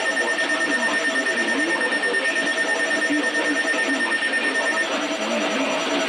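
Electronic alert tone from an emergency broadcast: a steady high tone over a lower wavering sound, with the high tone stopping about five seconds in.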